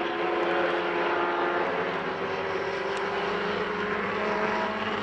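Engines of several small 850 Promocional class race cars running at high revs together, a steady mix of engine notes with one note slowly shifting in pitch from about two seconds in as a car passes.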